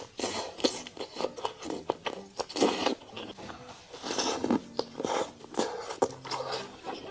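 Close-miked crunching and scraping from eating a crisp-crusted steak, coming in irregular bursts several times a second.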